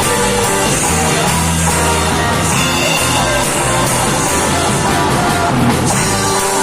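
Live church worship band playing a rock-style song, electric guitar over bass and drums, loud and continuous.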